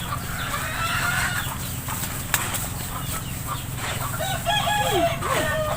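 Chickens clucking, with a rooster crowing near the end.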